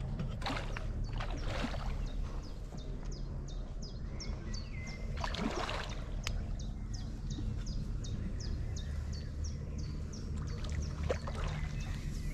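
Wind rumbling on the microphone, with a few brief rustles. Through the middle runs an even series of short, high, falling chirps, about three a second.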